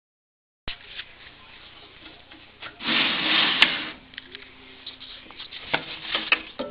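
Pieces of wood being handled: scattered knocks and clicks, with one loud scraping rub lasting about a second near the middle.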